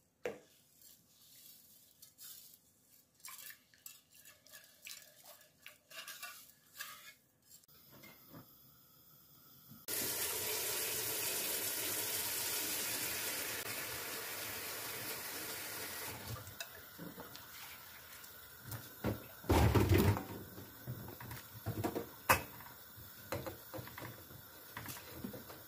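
Wire whisk clinking against a stainless steel pot as it stirs sugar into pickle brine, then the steady hiss of vinegar brine at the boil. Near the end, cucumbers splash into the boiling brine and knock against the pot.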